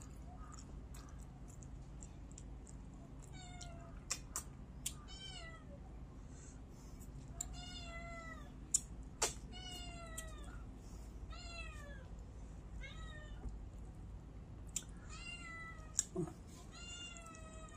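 A cat meowing over and over, about ten short meows that bend down in pitch, with scattered sharp clicks and taps between them.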